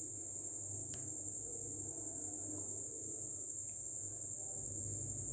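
Wooden spoon stirring a dry flour, crushed chocolate biscuit and baking soda mix in a glass bowl: faint scraping with a single tap about a second in. Underneath, a steady high-pitched trill and a low hum go on throughout.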